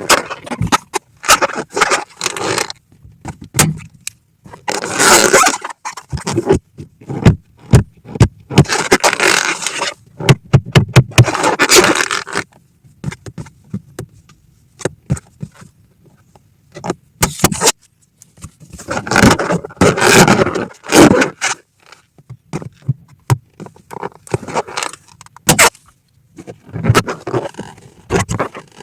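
Rubber balloons being handled, squeaking and scraping in stretches of a second or so, with many sharp pops scattered throughout as the balloons burst one after another.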